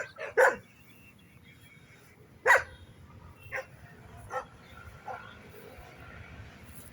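Dogs barking: two quick barks at the start, one loud bark about two and a half seconds in, then a few fainter barks spaced out.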